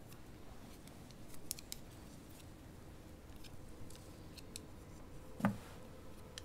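Metal knitting needles clicking softly now and then, followed by a single dull thump about five seconds in.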